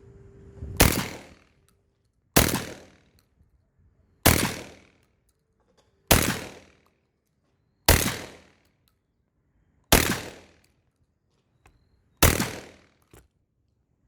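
Seven shots from an Armed Lethal semi-automatic 12-gauge shotgun, fired one at a time at a slow, even pace about two seconds apart. Each is a sharp report that dies away over about half a second.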